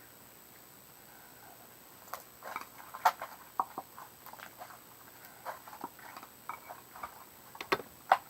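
Homemade slime being stretched and squished in the hands, giving irregular small sticky clicks and pops that begin about two seconds in.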